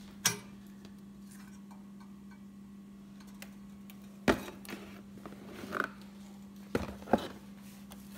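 A few sharp knocks and light taps as a gold-coloured metal serving plate is handled and set down, the loudest about four seconds in and two more near the end, over a steady low hum.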